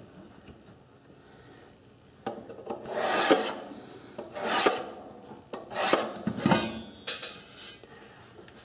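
Metal-tipped scriber drawn along a steel rule across the bottom of a non-stick pie pan, scratching a center line into the coating. It comes as several short scraping strokes, beginning about two seconds in.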